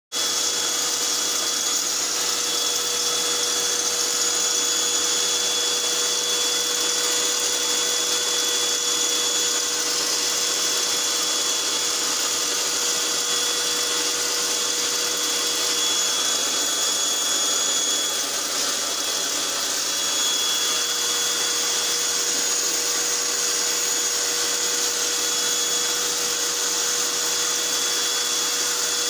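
A small motor-driven machine running steadily and without a break, a high whine over a broad hiss.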